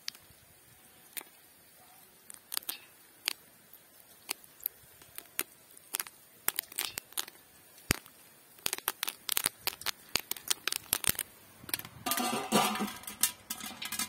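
Popcorn kernels popping in a hot pot: single sharp pops a second or more apart at first, coming thick and fast from about eight seconds in. Near the end a louder clatter as a steel lid goes onto the pot, with the popping going on beneath it.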